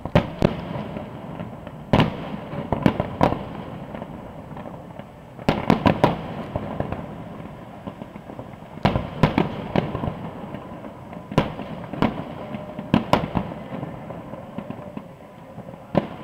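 Aerial firework shells bursting at a distance: about a dozen sharp bangs at irregular intervals, several coming in quick runs of three or four, with a low rumble carrying on between them.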